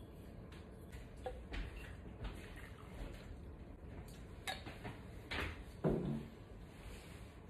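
Beer being poured from a glass bottle into a tall beer glass, with a few light glassy clinks. About six seconds in, the glass and bottle are set down on a wooden table with a knock.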